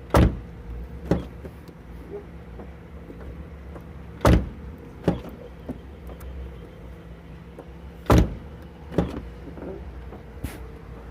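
A Volkswagen Gol G5 car door shut firmly three times, about four seconds apart, with lighter knocks from the door in between. No squeak or creak is heard: the door has just been greased, which cured its noise.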